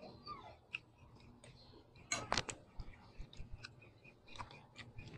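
Close-miked eating sounds: soft mouth clicks and chewing while eating rice by hand, with a quick cluster of louder sharp clicks about two seconds in.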